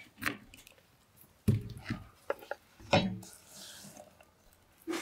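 A knife chops once on a wooden cutting board. The board then knocks heavily twice against a metal bowl, and chopped onion is swept off the board into the bowl with a soft sliding scrape.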